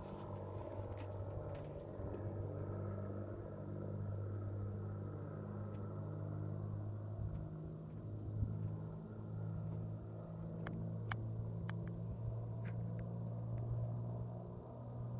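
Piston engines and propellers of a Grumman Widgeon amphibian in flight, a steady, wavering drone as the plane flies past. A few brief clicks sound in the second half.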